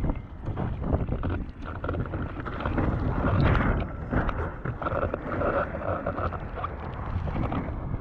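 Gusty wind buffeting the microphone, with water rushing and splashing against a windsurf board moving at speed. The rush rises and falls with the gusts.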